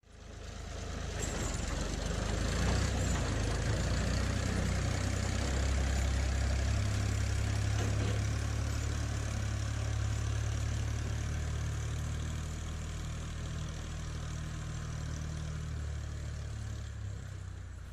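A heavy tractor engine, presumably the Ford 4500 backhoe's, idling steadily with a deep, even note. It starts abruptly and shifts slightly in pitch partway through.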